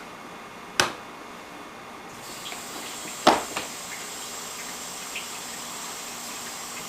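A click, then about two seconds in the dishwasher starts up with a steady hiss of water and a faint high whine that hold to the end. A sharp knock comes about three seconds in.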